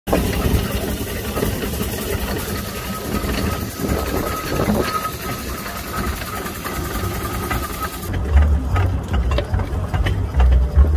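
6-inch scale Burrell compound steam traction engine running along a road, with a faint steady whine through the first part. From about eight seconds in the sound turns dull, with strong low rumbling gusts.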